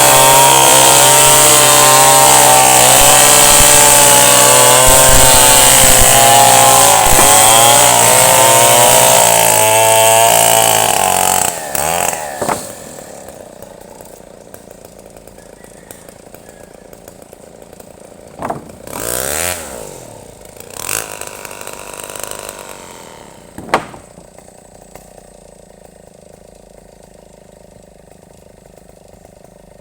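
Chainsaw running under load as it cuts into a tree, its engine pitch wavering, then dying away about twelve seconds in. After that come a few brief, quieter rustling noises and one sharp knock.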